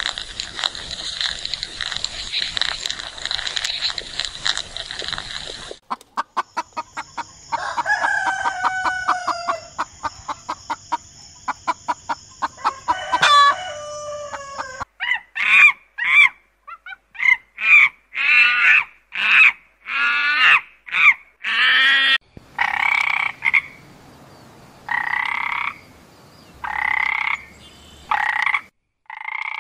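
A run of animal sounds. First a rapid, steady, high buzz; then, about six seconds in, chickens clucking and a rooster crowing; from about fifteen seconds in, a frog croaking over and over, about two croaks a second at first, then more spaced out.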